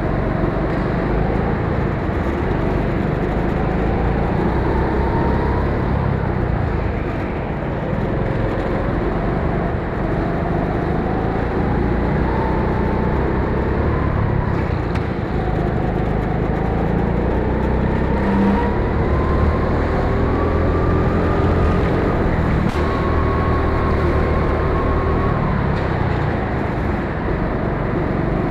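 Go-kart engine heard from on board, its pitch climbing and dropping again and again as the throttle opens on the straights and eases into the corners, over a steady rush of engine and running noise.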